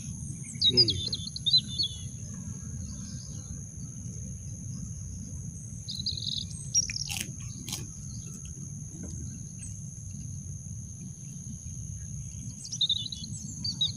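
Birds chirping in short bursts of quick high notes, about a second in, around six seconds in and again near the end, over a steady high-pitched whine and a low outdoor rumble. A couple of sharp clicks come between seven and eight seconds in.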